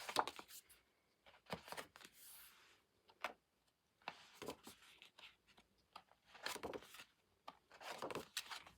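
Glossy pages of a K-pop album photobook being turned and handled: scattered soft paper rustles and light taps.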